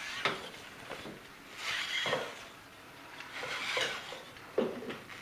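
Cloth backdrop being handled and unfolded, rustling in a few short swishes, about a second and a half, three and a half and four and a half seconds in.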